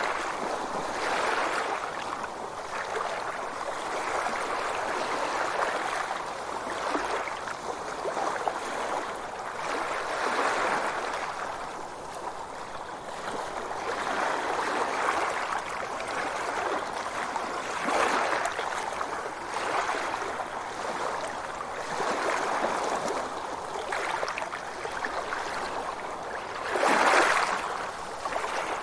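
Sea waves washing in, a continuous rushing wash that swells and ebbs every couple of seconds, with one louder wave near the end.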